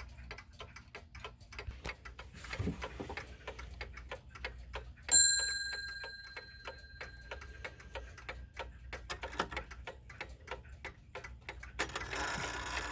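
Antique Ingraham mantel clock ticking steadily, its escapement making even clicks. About five seconds in, a single ringing strike on the clock's bell rings out and dies away, and near the end the striking mechanism briefly rattles as it starts to run.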